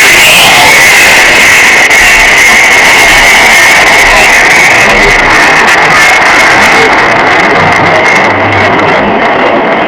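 Loud, dense rock music with electric guitar, the high end thinning out over the last few seconds.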